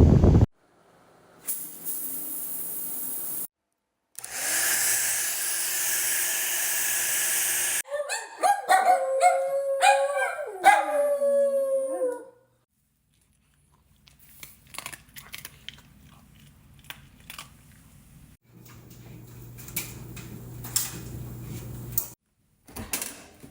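A small pet dog howling for about four seconds, a wavering call that sinks low near its end. It comes between other short household clips: a steady rushing noise before it, and scattered clicks over a low hum after it.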